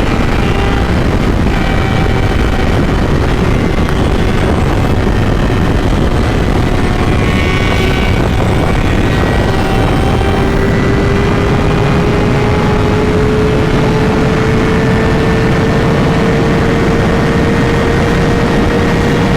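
Heavy wind rushing over the microphone at riding speed, with the Kawasaki ZX-6R 636's inline-four engine running underneath, its pitch climbing slowly through the second half.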